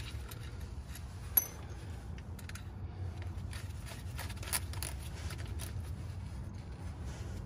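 Scattered light clicks and scrapes of hand tools working on metal, with one sharper click about a second and a half in, over a steady low hum.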